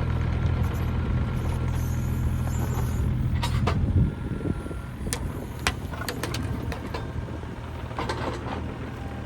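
An engine running steadily, easing back about four seconds in, with scattered clicks and knocks from work going on around it.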